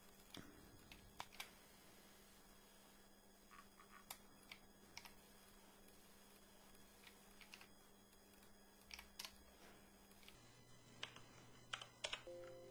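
Faint, irregular clicking of a computer keyboard and mouse, a few clicks every second or two with a cluster near the end, over a low steady electrical hum that drops in pitch about ten seconds in.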